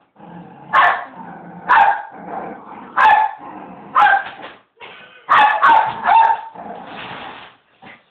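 Toy poodle barking in play: a string of barks about a second apart, then three in quick succession around five to six seconds in.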